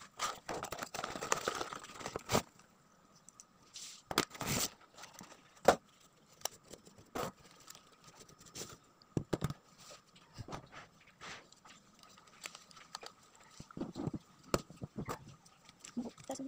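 Plastic mailer packaging crinkling and rustling for the first two seconds or so, then scattered light clicks and knocks as a cardboard box and a plastic tripod are handled.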